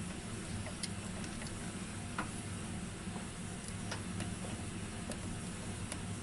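Scattered light clicks and taps of small parts and hand tools being handled, over a steady low hum.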